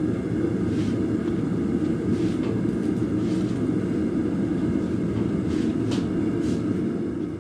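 Forge burner running with a steady low roar, with a few faint ticks of metal over it.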